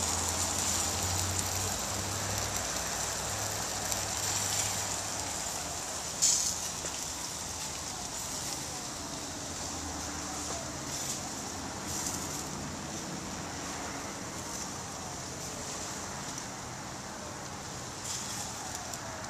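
Tri-tip and other meat sizzling on an open grill over hot coals: a steady hiss of fat and juices with occasional sharp pops, the loudest about six seconds in.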